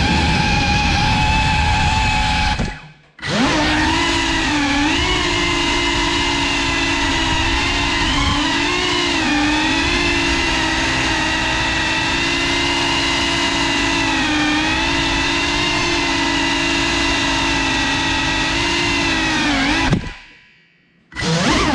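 Cinelog 35 cinewhoop FPV quadcopter's motors and ducted propellers whining, the pitch rising and falling with throttle. The sound cuts out briefly about three seconds in and again near the end, then spins back up.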